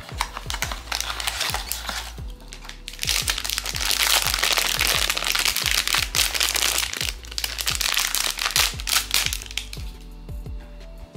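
A foil blind-box bag being crinkled and pulled open by hand, loud and dense from about three seconds in until near the end, after a few cardboard clicks as the small box is opened. Background music with a steady low beat plays under it.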